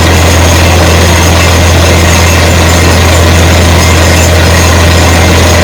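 Large diesel engine running steadily at a constant speed, a loud, even low hum with no change in pitch.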